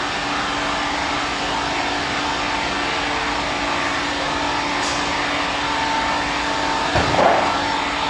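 Circular-saw sawmill line running: a steady machine noise with a constant hum. About a second before the end there is a short clunk.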